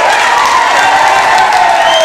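A group clapping and cheering, with voices calling out over the applause.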